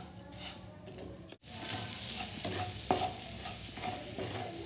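Wooden spatula stirring ginger paste and sugar in a frying pan, scraping the pan bottom in uneven strokes, with a light sizzle as the mixture cooks over low heat. There is a brief dropout about a second and a half in.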